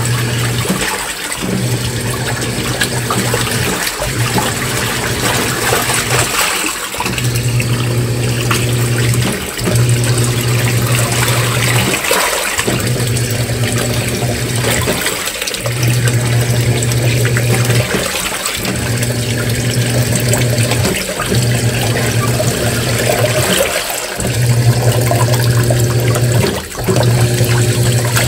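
Washing machine in its wash cycle: the motor hums in runs of about two and a half seconds, pausing briefly between them about every three seconds as the drive changes direction, with water and clothes sloshing throughout.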